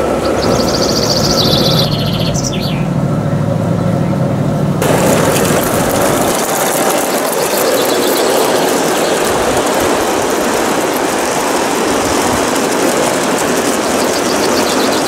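Birds chirping over a low hum for the first few seconds, then a sudden change to a steady rushing hiss as a large live-steam garden-scale locomotive runs with a long train of coal hopper wagons.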